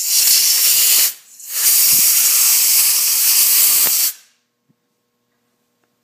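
Compressed-air blow gun blowing through the passages of a carburetor being cleaned to clear clogged orifices: two long blasts of hissing air, about a second and then about two and a half seconds, with a short gap between.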